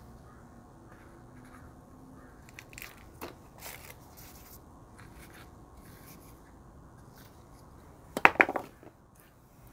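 Gloved hands handling a string-of-pearls succulent and its potting soil in a tall pot: soft rustling and scraping, then a quick cluster of sharp knocks about eight seconds in, the loudest sound.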